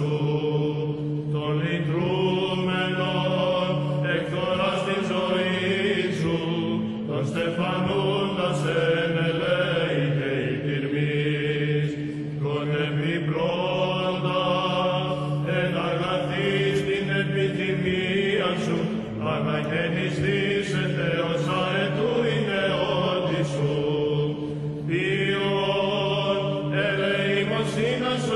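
Greek religious chant as background music: a slow, melismatic sung melody over a steady held drone.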